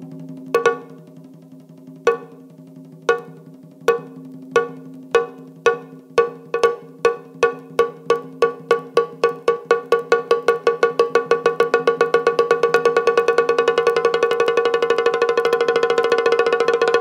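Background music: a single pitched note struck over and over, the strikes starting about a second and a half apart and speeding up into a fast continuous roll, over a low held drone that fades out partway through.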